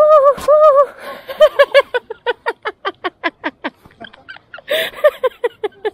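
Comic sound effect from the edit: a sung, voice-like phrase repeated a few times, then a fast run of short falling notes at about six a second, ending in a brief laugh-like burst.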